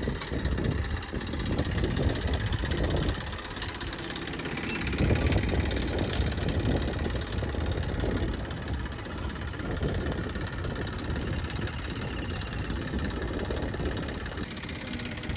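Farm tractor's diesel engine running as it manoeuvres with a trolley hitched behind, the engine note swelling and easing.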